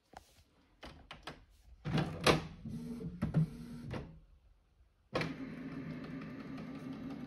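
Canon inkjet all-in-one printer at work. It gives a string of clicks, then a motor whir with sharp clicks for about two seconds. After a short near-quiet pause it starts again about five seconds in with a steady, even mechanical whir as it runs its print mechanism.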